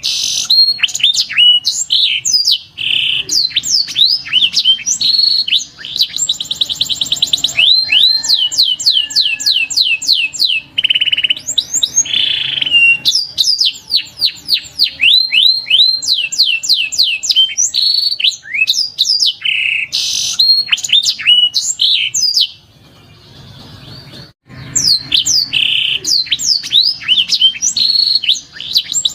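Domestic canary singing: a long, loud song of rapidly repeated chirps, fast trills and sweeping notes, with a quieter break of about two seconds near the end.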